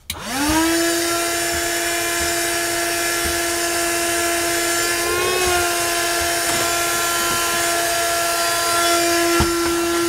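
A 12-volt wet and dry vacuum cleaner is switched on. Its motor spins up quickly to a steady high hum over a rush of air. The pitch wavers briefly about five seconds in, and there is a single click near the end.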